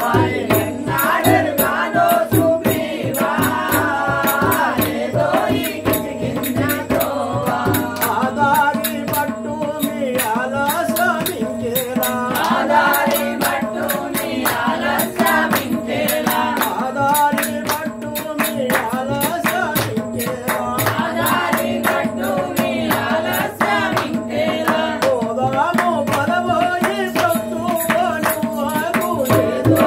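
Telugu devotional bhajan singing: a man's voice leads through a microphone and other voices join him. Underneath are a tabla and a steady rhythmic rattle of jingles.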